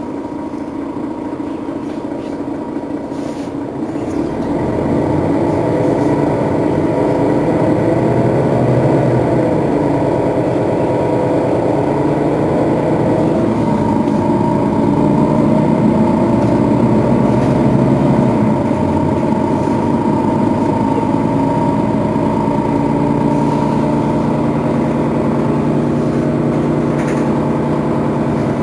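Setra S415NF city bus's diesel engine running. It grows louder about four seconds in, its note rising and falling several times, then holds a steady note near the end.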